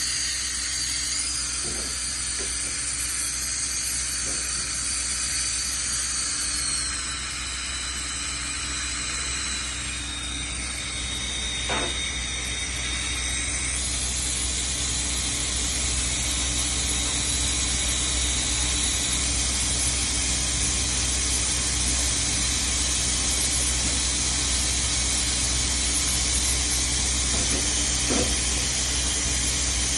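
A steady hiss, strongest in the high range, with a low hum underneath and a faint click about twelve seconds in and another near the end.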